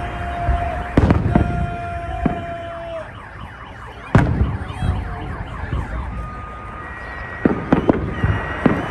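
Fireworks shells bursting overhead: sharp bangs about a second in, a loudest one around four seconds, and several more near the end. A steady high tone holds through the first few seconds.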